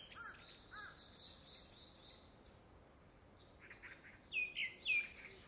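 Grey-backed thrush singing: clear whistled notes at the start, a short pause, then about four seconds in a loud phrase of falling whistles. The uploader takes it for courtship song ahead of a second brood.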